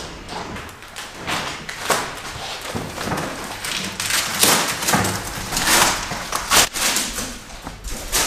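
Irregular knocks, scrapes and rustling as household belongings are handled and set down during a move.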